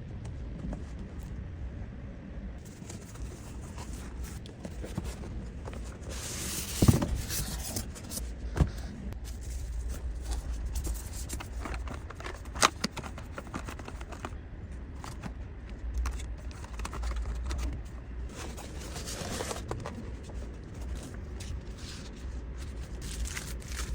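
Cardboard box and packaging being handled and opened: irregular scraping, rustling and tearing, with a few sharp knocks about seven, eight and a half and twelve and a half seconds in.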